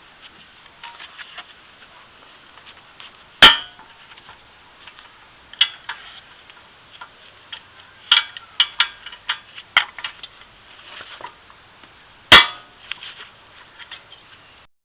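Metal hand tools working on a car's brake caliper bracket bolts: scattered clicks and clinks of a socket wrench, with two sharp metallic knocks, one about three and a half seconds in and one about twelve seconds in.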